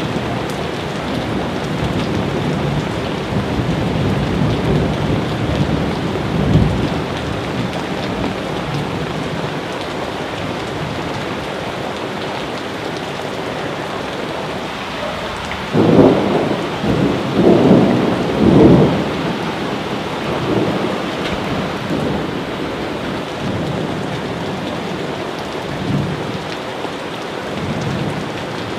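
Steady heavy rain with rolling thunder. The thunder swells several times, loudest in a run of rumbles about sixteen to nineteen seconds in.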